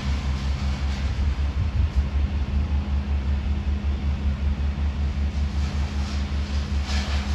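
A large engine running steadily at a constant speed, with a low throb of several pulses a second. A short hiss comes near the end.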